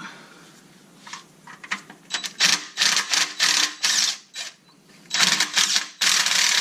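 DeWalt cordless impact tool hammering in several bursts as it loosens bolts, with a pause before a longer run near the end.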